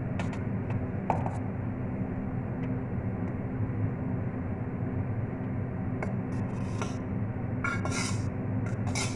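A fork scraping and clicking against a metal pot as boiled noodles are pushed out of it into the soup, a few light metallic scrapes early and more near the end, over a steady low hum.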